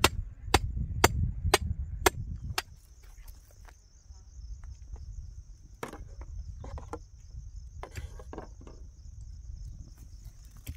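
Sharp, regular strikes of a hand tool on hard ground or stone, about two a second, stopping about two and a half seconds in, then a few scattered softer knocks. A steady high insect trill sets in as the strikes stop.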